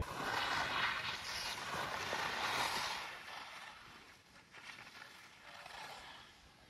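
Skis sliding through snow as a skier passes close by: a rushing hiss that swells over the first few seconds, then fades with a few smaller scrapes.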